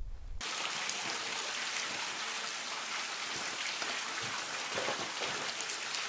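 Glacial meltwater dripping inside an ice cave, a steady rain-like patter of many drops that starts about half a second in.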